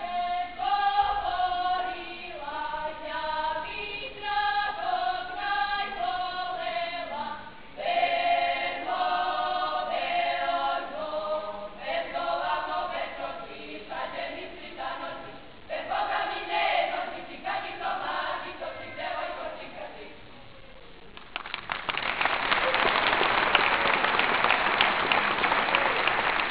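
A folk singing group singing a song in chorus, with no instruments heard, ending about twenty seconds in. After a brief pause the audience breaks into steady applause.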